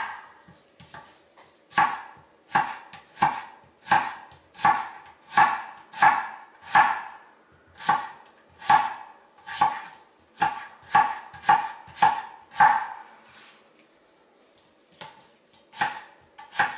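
Chef's knife slicing red onion into strips on a bamboo cutting board: a steady run of chopping strokes, about one and a half a second. The strokes stop about thirteen seconds in, and a few lighter cuts follow near the end.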